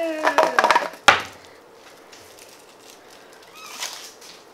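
A person's drawn-out vocal sound falling in pitch trails off in the first second. Over it come a quick run of sharp clicks and taps, the last and loudest about a second in. After that it stays fairly quiet, with only faint handling noise.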